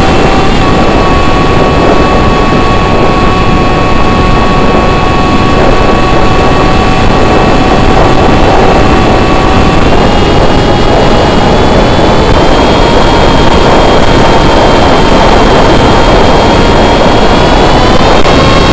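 Electric motor and propeller of a foam S800 flying wing whining steadily in flight, heard from the onboard camera under heavy wind rush. The whine's pitch steps up slightly about ten seconds in and again near the end.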